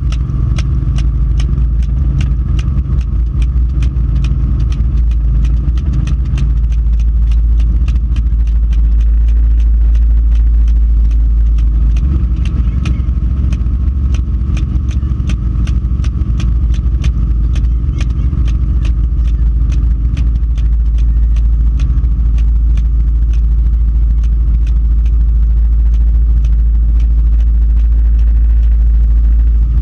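Helicopter in flight heard from inside the cabin: a steady heavy rumble of engine and rotor. Over it runs a fast, even train of sharp ticks, about four a second, for most of the time.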